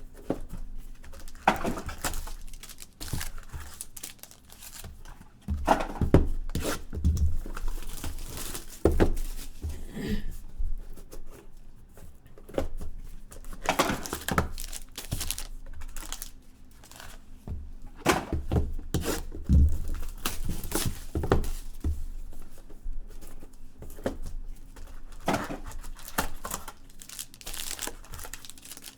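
Trading card box packaging being torn open and crinkled by hand, in irregular bursts.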